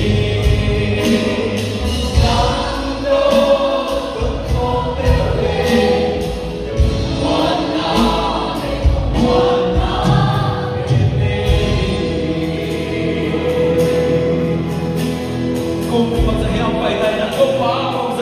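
A group singing a Christian worship song over instrumental accompaniment with a steady beat.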